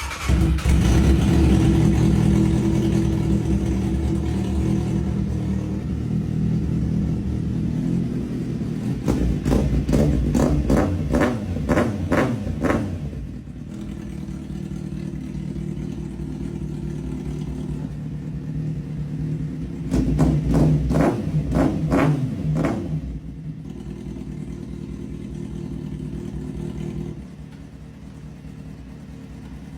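A vehicle engine running steadily, revved in two runs of quick, repeated blips, the first about a third of the way in and the second about two-thirds in. It settles to a lower, quieter run near the end.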